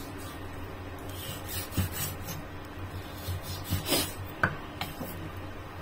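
Chef's knife slicing through raw beef on a wooden chopping block: a few scraping strokes, with the blade knocking on the wood, the strongest about four seconds in.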